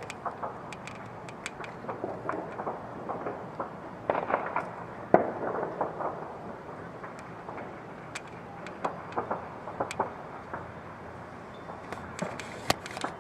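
Fireworks popping and crackling in irregular bursts, with a denser flurry about four seconds in and one louder bang just after.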